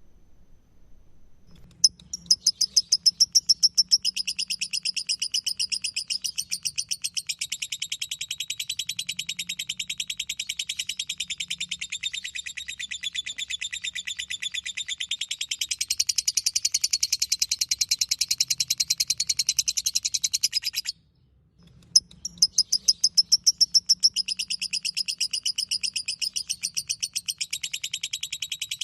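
Lovebird 'ngekek': a long, rapid run of high chattering calls that starts about two seconds in, breaks off abruptly for about a second near the two-thirds mark, then starts again.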